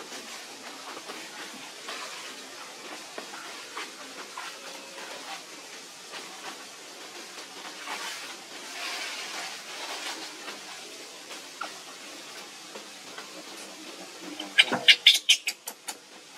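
Macaques at play over a steady hiss of background noise. About two seconds before the end comes a quick, loud run of about seven harsh, sharp shrieks.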